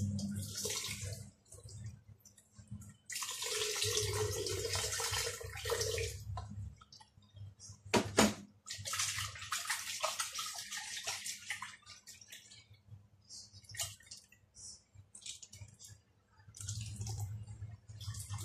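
Blended potato-leek soup poured from a blender jug into a saucepan: two spells of splashing liquid, then scattered drips as the jug empties, with one sharp knock just after eight seconds in.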